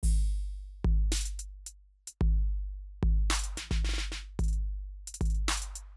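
Electronic background music: a drum-machine beat with deep, long-decaying bass-drum booms about once a second and sharp snare or hi-hat hits between them.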